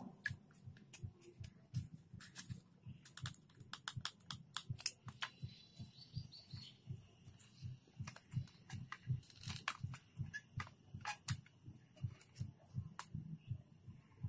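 Faint clicks and taps of stiff card 3D-puzzle pieces being handled and slotted together, over a run of low soft thumps several times a second.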